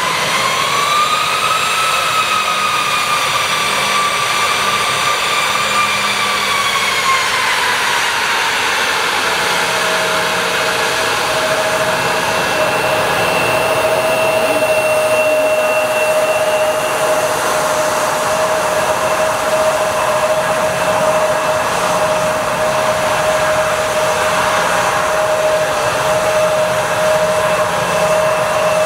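Bombardier CRJ-900's two GE CF34 turbofan engines running at taxi power, a loud steady rush with a high whine. The whine rises about a second in, falls away around seven seconds in, then settles on a lower steady tone.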